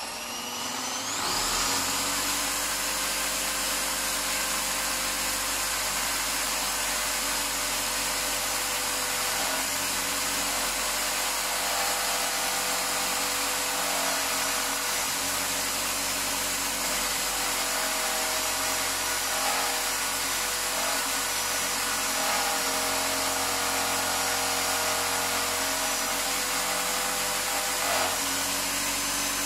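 Corded electric drill clamped in a bench vise, spinning a wire brush wheel: it spins up in pitch over the first second or two, then runs steadily while a rusty brake caliper carrier is held against the brush to scour the rust off the pad seats.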